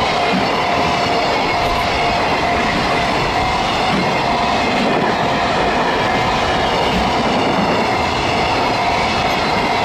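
Container flat wagons of a JR Freight train rolling past close by: a steady rumble and clatter of steel wheels on the rails, with a thin steady whine over it.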